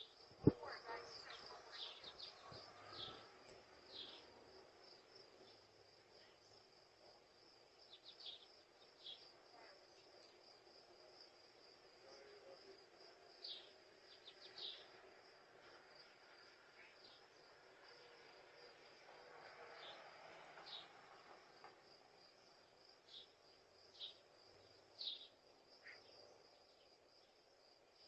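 Faint outdoor ambience: a steady high insect trill with scattered short bird chirps, and one sharp click about half a second in.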